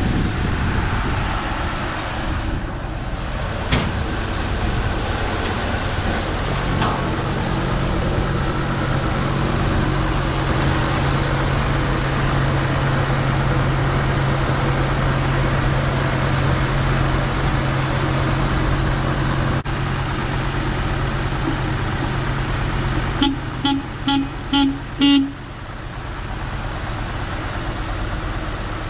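1949 International KB-3 truck's engine idling steadily. Near the end the truck's horn gives about five short honks in quick succession, the last a little longer.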